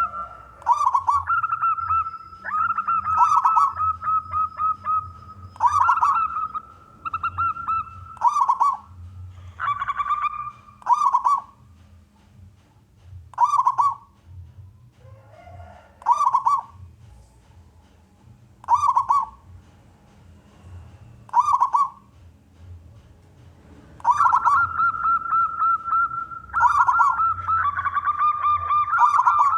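Zebra dove (perkutut) cooing: a run of short, bubbling coo phrases repeated every couple of seconds, with longer, denser stretches of calling at the start and again near the end.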